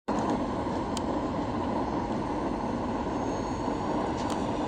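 Steady noise of a jet airliner's engines and rushing air, heard inside the passenger cabin during the approach to landing, with a couple of faint clicks.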